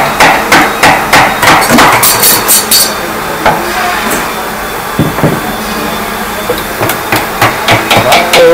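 Wooden mallet driving a chisel into wood: quick blows about four a second, stopping for a few seconds about three seconds in, then starting again near the end.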